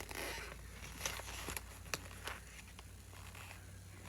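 Faint rustling of small packaging being handled, with a few light clicks in the first two seconds over a steady low hum.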